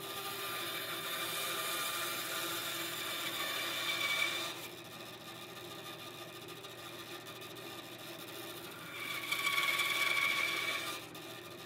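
Bandsaw running while its blade cuts slots into the end of a 1 3/8-inch wooden dowel. The first cut lasts about four and a half seconds, then the saw runs free for a few seconds, then it cuts again for about two seconds near the end.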